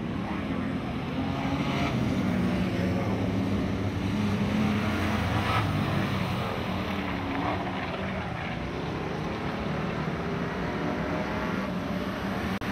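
Dirt-track stock car engines running hard, the pitch rising and falling as the cars accelerate and lift around the oval.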